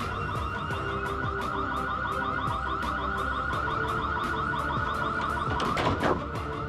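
Warning alarm of a vehicle net barrier: a loud electronic tone warbling rapidly up and down, signalling that the barrier is raising. A brief louder sweep comes near the end, over background music with a steady beat.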